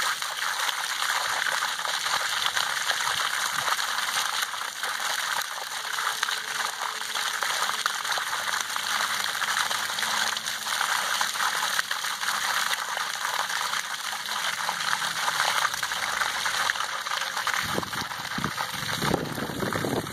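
Swimming-pool water pouring from the open end of a white PVC discharge pipe and splashing steadily onto a flooded concrete pad as the pool is pumped out.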